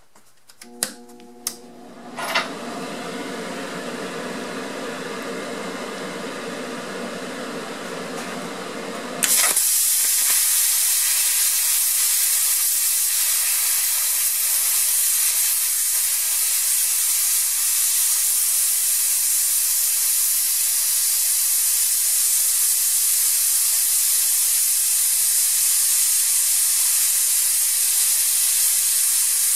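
Eastwood Versa Cut 60 plasma cutter slowly cutting through 1 inch square steel bar stock, beyond its rated 7/8 inch. A few clicks and a steady hum come first, then about nine seconds in the arc strikes and a loud, steady hiss runs on as it cuts.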